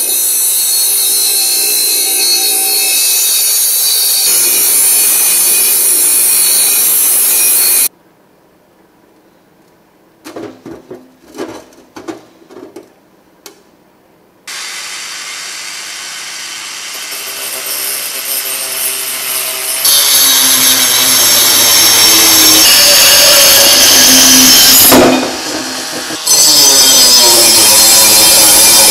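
A Ryobi 6-inch bench grinder grinding the edge of a sheet-metal part for about eight seconds, then a pause with a few knocks from handling. Then a rotary tool with an abrasive cutoff disc whines up and cuts into a domed metal canister: a loud, steady grinding that dips briefly about three quarters of the way through.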